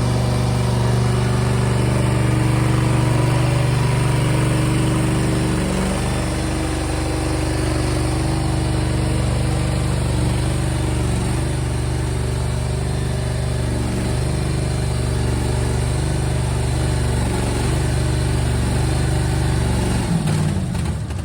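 Briggs & Stratton Vanguard engine of a mini skid steer running steadily, its pitch shifting slightly about six seconds in, then shut off near the end and winding down.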